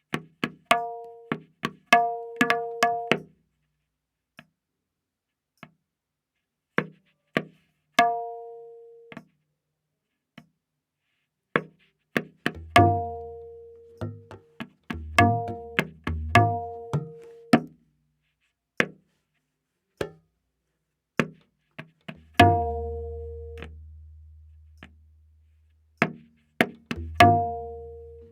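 Tabla playing a slow vilambit ektaal theka, the strokes widely spaced. Crisp dayan strokes ring at its tuned pitch of A#, and deep bayan strokes join from about halfway, one bass note left ringing for about three seconds.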